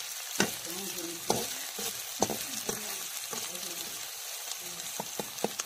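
Sliced onions sizzling as they fry in mustard oil in a black kadhai, stirred with a kitchen knife. The blade clicks and scrapes against the pan several times, several strokes in quick succession near the end.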